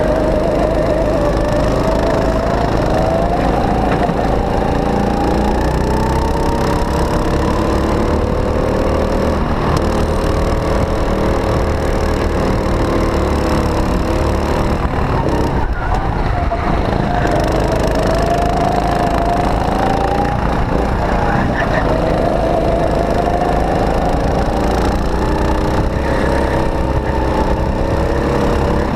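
Go-kart engine heard onboard at racing speed, its pitch rising along the straights and falling as it slows for corners, several times over, dropping lowest about halfway through. Heavy wind rumble runs underneath.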